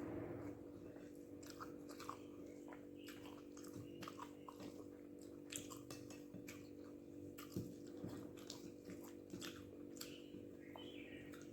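A person chewing a mouthful of rice with spicy egg gravy: irregular wet mouth clicks and smacks, over a steady faint hum.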